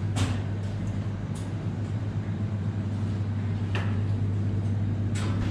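A steady low hum with a few short clicks and knocks scattered through it.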